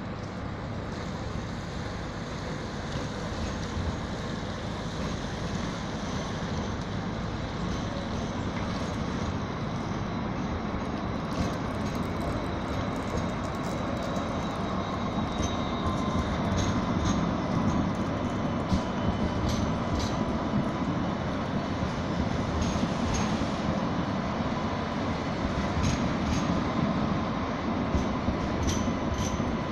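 Alstom Citadis X05 light rail tram rolling past on street-running track, a steady rumble that grows louder as it draws near and is loudest around the middle. Scattered sharp high ticks and a faint steady whine come in over the second half.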